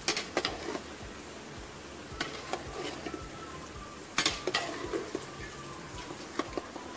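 Metal spoon stirring chicken and vegetables in a metal pot, scraping and knocking irregularly against the pot's sides, with a soft frying sizzle underneath. The loudest knocks come just after the start and about four seconds in.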